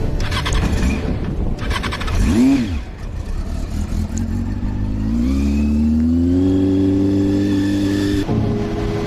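Motorcycle engine: a brief rev about two seconds in, then accelerating with rising pitch and settling into a steady run, cut off abruptly near the end.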